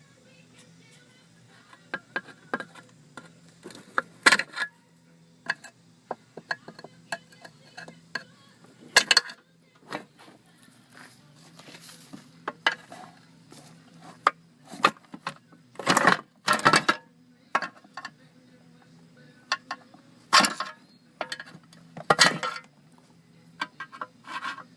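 Flathead screwdriver working rubber bolt grommets out of their holes in a metal part: irregular clicks, clinks and taps, with louder knocks about four, nine, sixteen, twenty and twenty-two seconds in.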